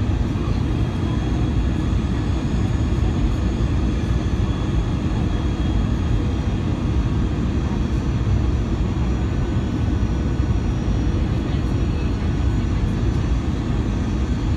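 Airbus A320 cabin noise on final approach: a steady low rumble of the wing-mounted jet engines and rushing air, heard from inside the cabin, with a faint steady high whine above it.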